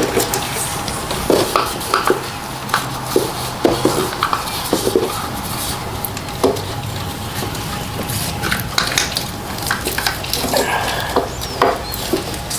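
Hand tools and metal engine parts clinking and knocking in a scattered run of short taps, over a steady low hum.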